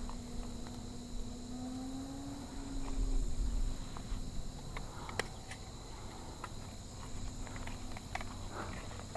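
Outdoor ambience of insects trilling steadily, high-pitched and continuous. A faint low drone underneath rises slightly in pitch over the first few seconds, with a few small clicks and a low rumble about three seconds in.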